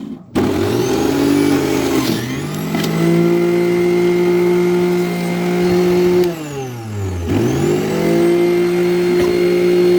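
Bajaj juicer mixer grinder's electric motor running at full speed on apple pieces with a steady whine. About six seconds in it winds down, then spins back up about a second later.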